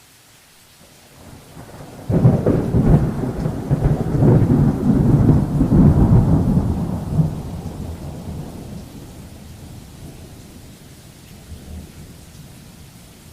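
A peal of thunder over steady rain: a low rumble builds about a second in, breaks loudly about two seconds in, rolls on for several seconds and slowly dies away.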